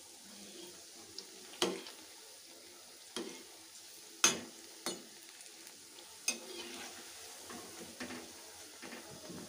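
Spinach pakoras deep-frying in hot oil in a metal kadhai with a steady sizzle, while a perforated metal slotted spoon turns them and clinks against the pan several times. The sharpest knock comes a little over four seconds in.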